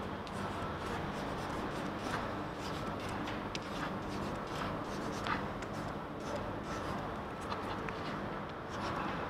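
Stylus writing on a tablet's glass screen: light scratching strokes and small taps as letters are drawn, over a steady low hum.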